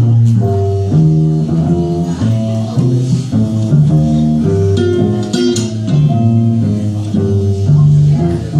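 Acoustic guitar and double bass playing the instrumental intro of a blues song, with plucked notes over a walking bass line.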